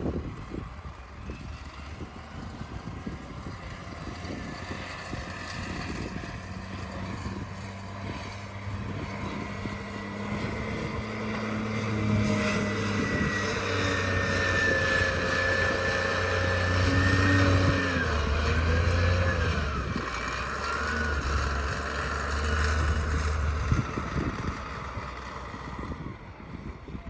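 An engine running, growing louder toward the middle and fading near the end, with a whine that shifts up and down in pitch.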